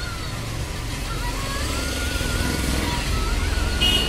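Low, steady rumble of street traffic, with a thin wavering tone gliding up and down above it and a short high beep near the end.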